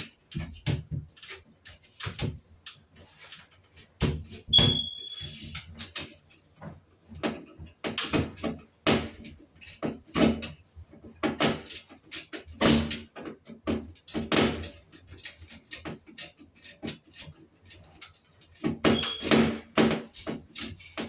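Screwdriver working at a stubborn screw in a metal fluorescent light fixture: irregular scraping and clicking of metal on metal, with a brief high squeal about four seconds in and a fainter one near the end.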